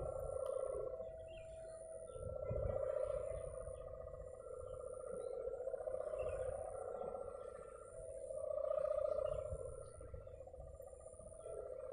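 Railway level-crossing warning alarm sounding faintly: a steady electronic tone that swells and fades about every three seconds. It warns that a train is approaching and the crossing is closed.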